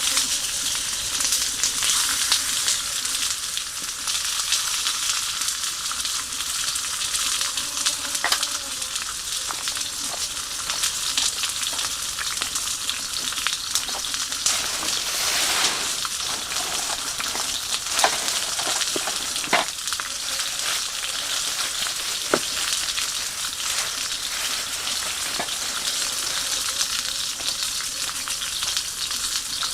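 Food sizzling steadily in a Turk iron frying pan over a campfire, with scattered sharp pops and ticks.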